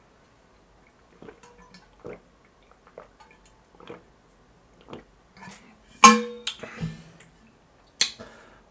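A man gulping water from a large insulated water bottle: faint swallows every second or so, a loud sharp sound about six seconds in, then a knock as the bottle is set down on the table near the end.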